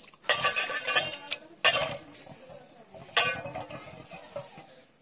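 Water splashing and sloshing in a basin as coriander leaves are washed by hand, in a few short bursts.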